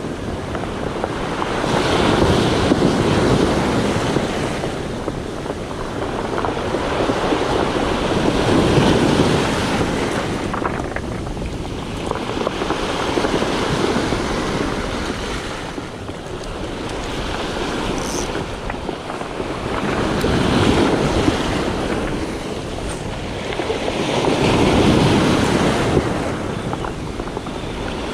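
Sea waves breaking and washing over a pebble shore, the surge swelling and fading about every five to six seconds, with wind buffeting the microphone.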